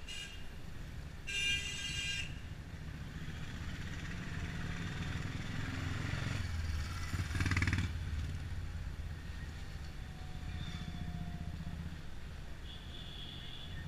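Taxi's engine and road noise inside the cab in dense city traffic, a steady low rumble. A horn honks once about a second and a half in, the traffic swells louder around the middle, and a brief high tone sounds near the end.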